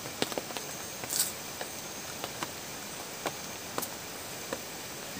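Light, scattered clicks and clinks of people eating by hand from plates and dishes, over a steady background hiss.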